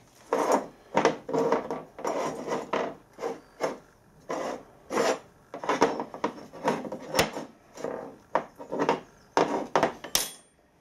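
Metal-on-metal rubbing and scraping as a brass locomotive-type steam cylinder casting is handled: an uneven run of rasping strokes, about two a second, with two sharp clicks in the second half.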